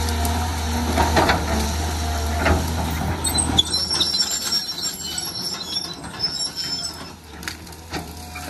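Caterpillar 320 hydraulic excavator at work clearing brush: its diesel engine runs with a steady low hum, with sharp cracks as branches and scrub break, and high-pitched metallic squealing from the machine about midway.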